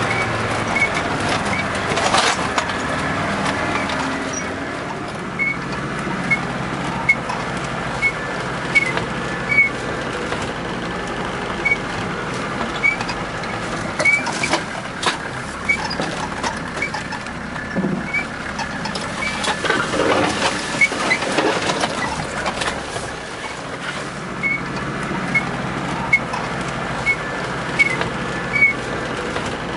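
Car engine running as the car drives over a bumpy dirt forest track, heard from inside the cabin. The body and suspension knock and rattle over bumps and stones, with a cluster of heavier knocks about two-thirds of the way in.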